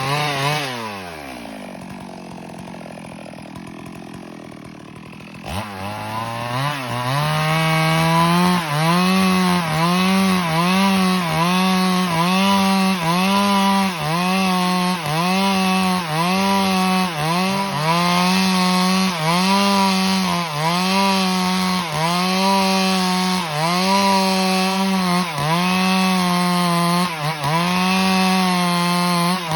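Stihl MS382 two-stroke chainsaw drops back to idle, then revs up again about five seconds in and rips lengthwise along a log at full throttle. Its engine pitch dips under the cutting load about once a second.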